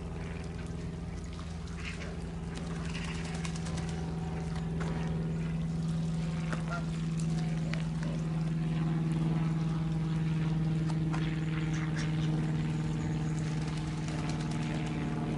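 A motor's steady low drone at one pitch, growing a little louder toward the middle.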